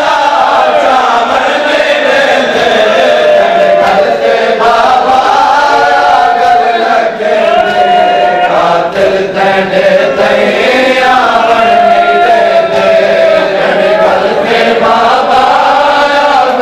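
Men's voices chanting a noha, a Shia lament, in unison, continuous and loud, with the sharp slaps of matam, hands beating on chests, running under the singing.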